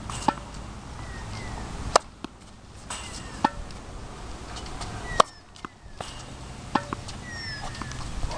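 Tennis ball struck by racket strings in a baseline rally on a hard court: several sharp pops a second or two apart, with fainter ball bounces in between.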